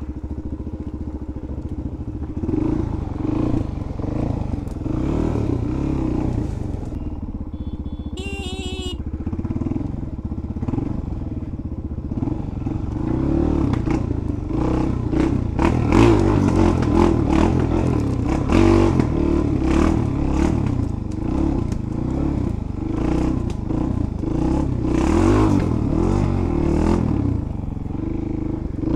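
Suzuki DR-Z400 single-cylinder four-stroke engine running and revving up and down as the bike is ridden off-road, with frequent knocks and rattles from the bike over rough ground and brush that get busier from about halfway. A brief high squeal about eight seconds in.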